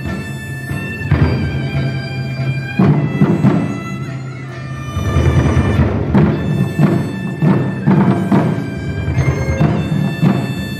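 Chinese bamboo flutes (dizi) playing a sustained melody over strokes of Chinese drums, part of a traditional instrumental ensemble piece.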